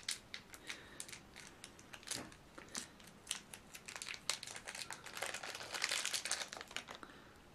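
Plastic packaging crinkling and crackling as a toy piece is unwrapped, in irregular crackles that are thickest a little after five seconds in and stop shortly before the end.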